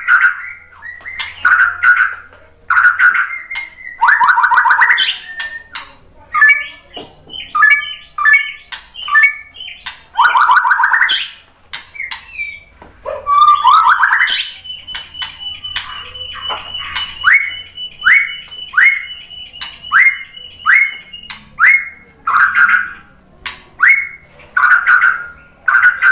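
White-rumped shama (murai batu) singing loudly: varied phrases of harsh repeated calls, clear whistles and fast trills, with a long run of quick down-slurred notes over a held high note about halfway through.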